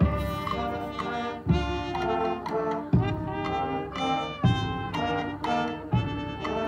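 High school marching band playing sustained brass chords, punctuated by a loud, low accented hit about every one and a half seconds.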